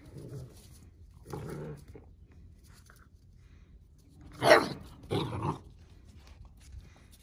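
Central Asian Shepherd puppies play-growling low in the first two seconds, then two loud, short barks about 0.7 s apart past the middle.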